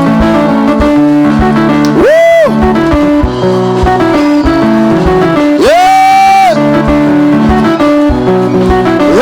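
Live church band music with guitar and a steady drum beat. Three times a high swooping note rises, holds briefly and falls away.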